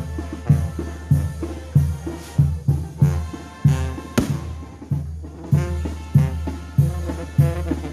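Mexican banda brass band playing a piece over a steady bass-drum and snare beat.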